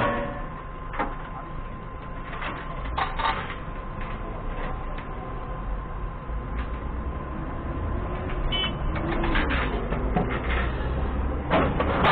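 Steel lifting chains clinking and knocking as they are handled, busiest near the end, over a steady low engine rumble from the idling forklift.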